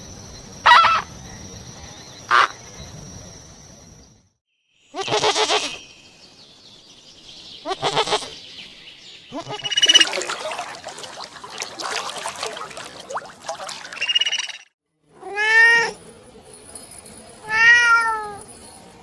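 A run of short animal calls, cut off abruptly one after another. Near the end, a cat meows twice, each a long call that rises and falls in pitch.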